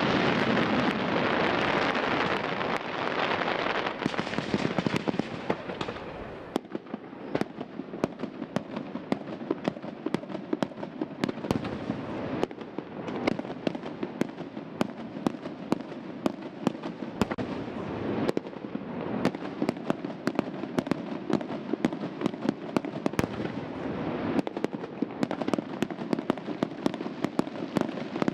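Aerial fireworks bursting: a dense wash of crackling for the first few seconds, then a quick, steady run of sharp bangs and pops from shells going off, growing denser again near the end.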